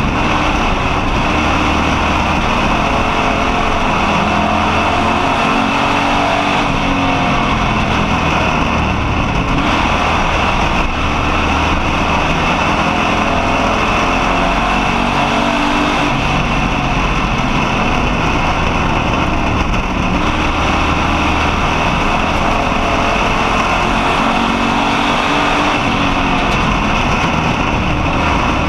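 Street stock race car's engine heard from inside the cockpit, running hard and loud, its pitch rising and falling again and again as the car laps the oval, over a constant rush of road and wind noise.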